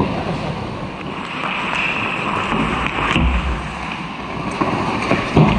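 Ice hockey play close to the goal: skate blades scraping and carving the ice, with a sharp knock about three seconds in and another thump near the end.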